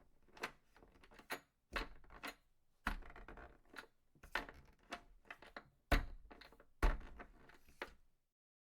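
A series of irregular knocks and clunks, like hard objects being handled and set down, the loudest with a dull thud, about six and seven seconds in.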